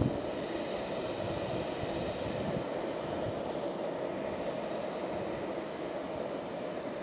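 Jet airliner engines running steadily at low power as the aircraft taxis: an even rush with a constant hum, easing off slightly near the end.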